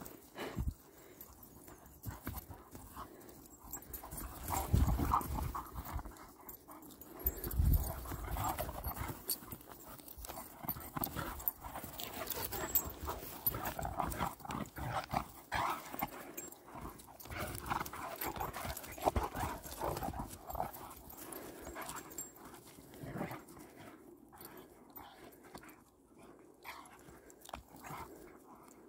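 A Kangal and a Doberman playing rough together: dog sounds with scuffling and the thud of running paws on grass. There are heavier low thumps about five and seven and a half seconds in.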